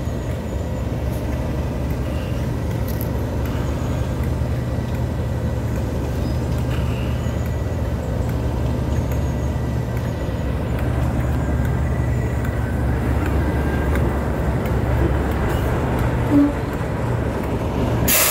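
English Electric V12 diesel engine of a Class 37 locomotive running steadily at close range, a low even engine note, with a brief higher note about sixteen seconds in.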